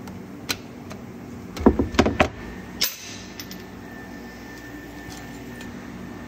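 Knocks and metal clanks of a hand tool working a bolt under a car, loudest in a cluster about a second and a half to two seconds in, over a steady low hum.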